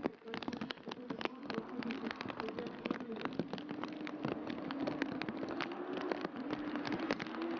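Car driving, its engine note slowly rising in pitch, under a dense continuous patter of crackles and ticks.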